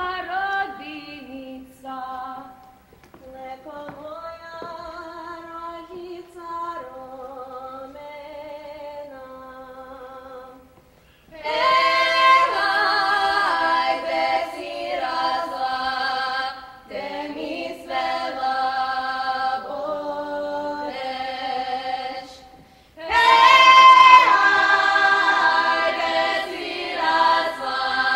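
Croatian folk singing without instruments. A woman sings alone at first. About eleven seconds in, a choir joins, much louder. After a short break near twenty-three seconds the choir comes back louder still.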